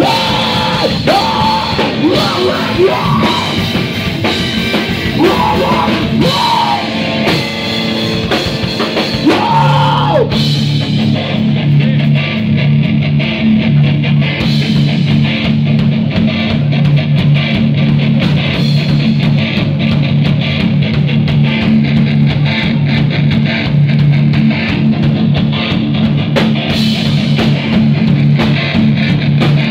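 Live rock band playing loudly: electric guitar and drum kit. About ten seconds in, the higher gliding melodic line drops away and a low repeating riff carries on under steady drumming.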